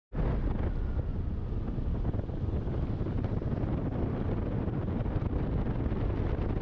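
Wind buffeting the microphone outdoors: a steady deep rumble with a fainter hiss of noise above it.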